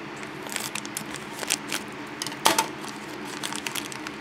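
Small plastic clicks and light crinkles of hands handling a Shopkins blind bag and its tiny plastic figures, with one sharper click about two and a half seconds in.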